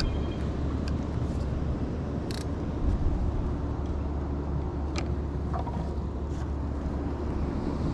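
Steady low rumble of wind and ocean surf, with a few light clicks and knocks about one, two and a half, and five seconds in.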